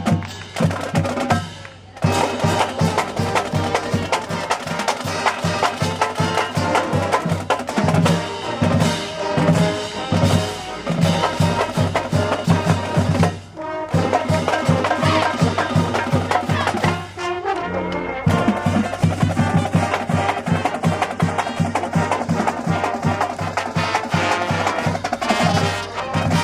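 Marching band playing: brass (trumpets and trombones) over a steady, fast drumbeat, with short breaks about two seconds in and again around thirteen seconds.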